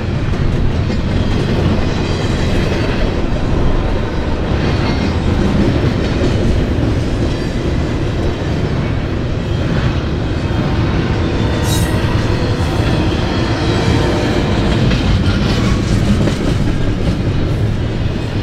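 Double-stack intermodal train's well cars rolling past close by: a steady rumble of steel wheels on rail with irregular clicks and a brief high screech about two-thirds of the way through.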